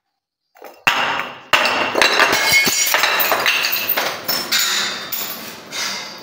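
Glass bottles filled with gel beads hitting marble stairs and smashing: two sharp impacts about a second in, then a long clatter of shards and beads clinking and rattling across the steps, with a few more knocks, fading near the end.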